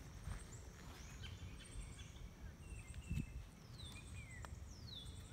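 Outdoor ambience: a steady high-pitched insect drone, with birds giving a few falling whistles in the second half, over a low rumble, and a soft low thump about three seconds in.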